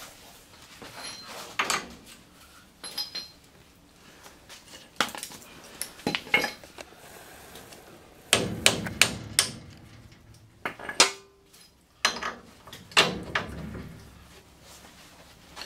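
Hammer blows and metal clanks on a pickup's front suspension as the lower control arm and coil spring are worked back into place: irregular clusters of sharp strikes, the heaviest about eight and twelve seconds in, with a short metallic ring near eleven seconds.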